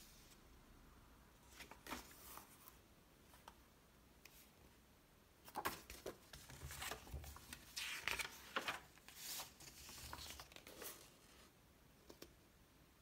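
Magazine pages being handled and turned, paper rustling and crinkling: a couple of brief rustles about two seconds in, then a longer run of rustling from about halfway to near the end.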